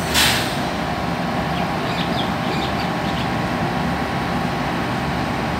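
SRT Daewoo diesel railcar idling, a steady engine hum. A short, loud hiss comes just after the start. Faint bird chirps come a couple of seconds in.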